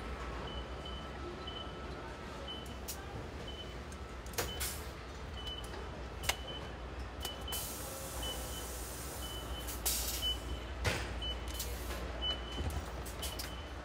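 Car assembly line machinery: a steady low hum with a short electronic warning beep repeating about every two-thirds of a second. Sharp clanks come now and then, and a hiss lasts about a second and a half around eight seconds in.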